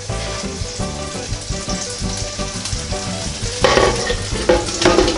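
Pancakes and sausages sizzling steadily in a NuWave Medley XL electric skillet. Near the end come a few louder knocks as the glass lid is set back on.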